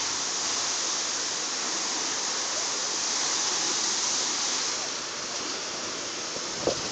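A large gush of water pouring and splashing steadily, a torrent flooding the street. A short knock sounds near the end.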